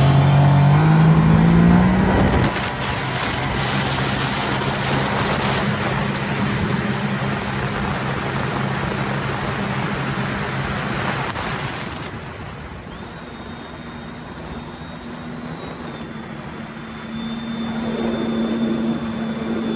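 Sea-Doo RXT-X personal watercraft's supercharged three-cylinder engine at full throttle on a top-speed run, climbing in pitch over the first couple of seconds and then holding steady near 77 mph with a high whine over the engine note. About twelve seconds in the rider backs off and the ski runs quieter as it slows.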